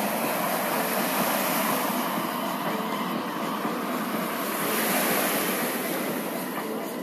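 Boeing 747-400's four jet engines on final approach: a steady jet roar with a high hiss, swelling slightly about five seconds in.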